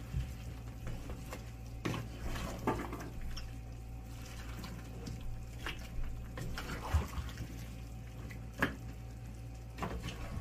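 Chunky chicken and vegetable soup being stirred in a pot with a spatula: wet sloshing and several short scrapes and knocks of the spatula against the pot, a few seconds apart, over a steady low hum.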